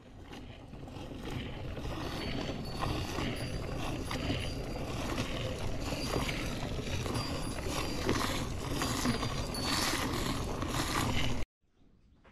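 Hand milking: quick, rhythmic squirts of milk from the cow's teats hitting a steel pot, a scratchy, zipper-like hiss. It stops suddenly near the end.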